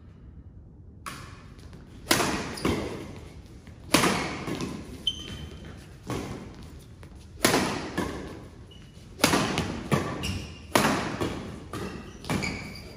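Badminton rally in an echoing gym hall: rackets striking the shuttlecock with sharp cracks about every one to two seconds, starting about two seconds in, with short squeaks of shoes on the court mat between hits.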